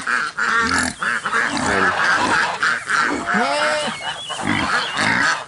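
A flock of Pekin ducks and Embden geese calling together: many overlapping quacks and honks in quick succession.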